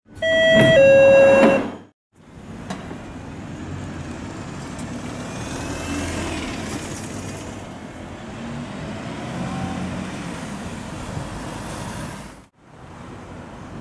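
A short, loud intro sting of a few stepped musical notes, then road traffic: a bus and vans passing on a town street, with engines and tyre noise. Near the end the traffic cuts off abruptly to quieter outdoor noise.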